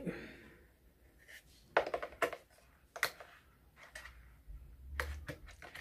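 A few small, sharp clicks and taps, scattered and quiet, as an AA battery is fitted into the battery compartment on the back of a battery-operated wall clock.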